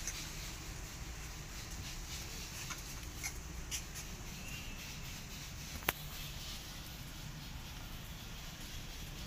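Steady low background rumble with a few faint light clicks, and one sharp click about six seconds in.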